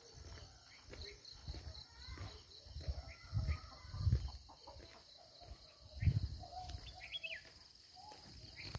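Birds chirping now and then over a steady high pulsing insect trill. Low thuds, loudest about three and a half, four and six seconds in, come from the walking camera.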